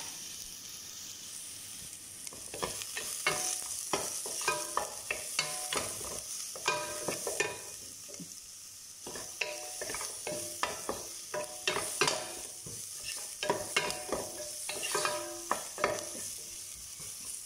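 Sliced onions frying in oil in a nonstick pot, a steady sizzle, while a wooden spoon stirs them, scraping and knocking against the pot again and again. The stirring pauses briefly about eight seconds in.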